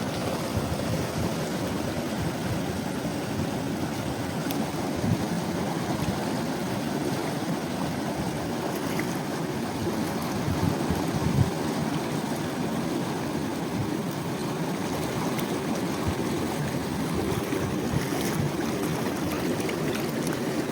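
Steady rush of flowing river water, with a couple of faint knocks.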